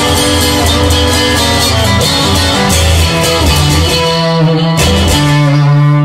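Guitar music with a quick, steady strummed rhythm; about five seconds in, a chord is struck and left ringing.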